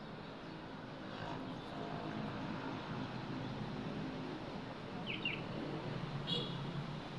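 Outdoor background noise with a steady low hum, like a distant engine, and two brief high chirps about five and six seconds in.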